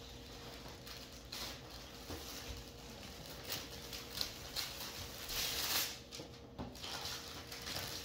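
Wrapping paper rustling and tearing in uneven spells as a present is unwrapped.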